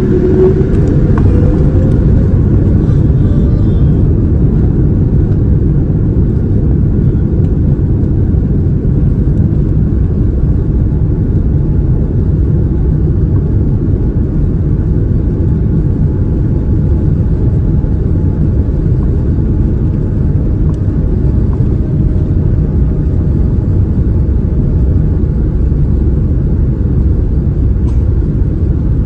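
Steady loud low rumble inside the economy cabin of a Boeing 787-9: engine and airflow noise of the airliner under way.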